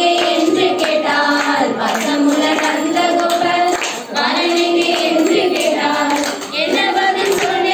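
A group of girls and young women singing a song together in unison, with held notes and two brief breaks between lines.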